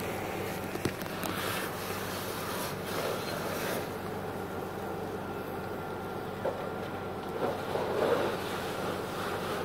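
Steady rushing hiss of a fire hose spraying water onto a burning car, over a low steady engine hum. A few short knocks cut through, the loudest near the end.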